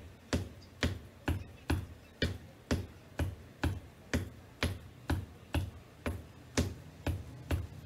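Black wedge-heeled ankle boots tapping on a hardwood floor in a steady rhythm, about two sharp taps a second.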